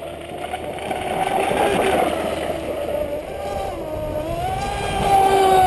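Brushless electric RC speedboat running at speed on the water: a high motor whine that dips in pitch about three and a half seconds in, then rises and grows louder as the boat sweeps in close.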